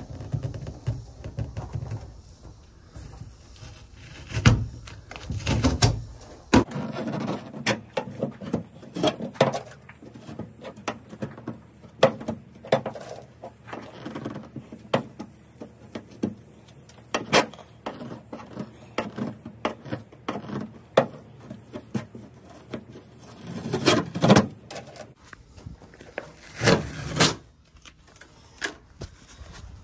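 Scraper blade prying and scraping old skateboard grip tape off a painted metal boat seat: irregular scrapes, clicks and knocks of metal on metal, with a few louder strokes.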